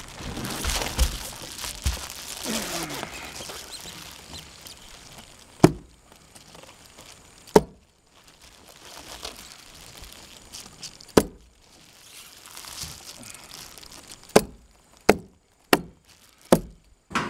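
Reflective foil roof insulation crinkling under a person's weight as he steps and kneels on it. Sharp single knocks on the roof deck come a couple of seconds apart, then four in quicker succession near the end.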